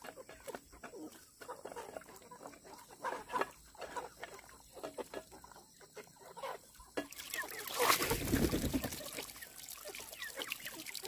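Chickens clucking, with many small clicks and rustles close by. About seven seconds in the sound changes abruptly to a louder rush of noise lasting a couple of seconds.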